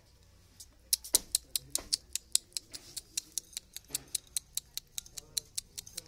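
Young rose-ringed parakeet's beak clicking at its steel water bowl: a fast, even run of sharp clicks, about five a second, starting about a second in.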